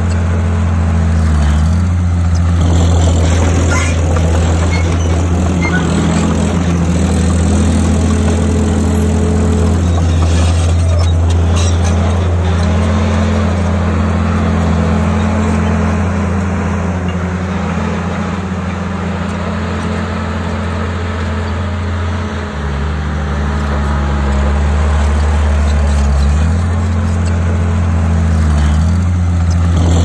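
Diesel engine of a Komatsu D51PX bulldozer running steadily under load, its pitch rising and falling as the machine works.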